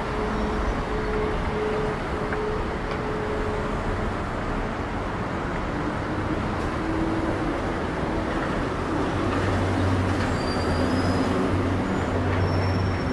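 Steady road traffic from a busy multi-lane road, a continuous rush of passing vehicles with engine hum. A heavier engine rumble grows a little louder about two-thirds of the way in.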